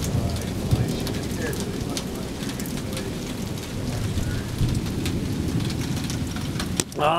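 Heavy rain falling, drops striking as many sharp ticks over a steady low rumble from the storm. A man's voice starts near the end.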